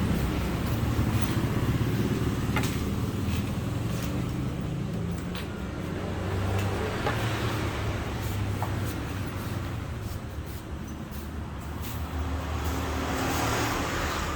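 Steady low engine-like rumble with a few faint clicks and taps.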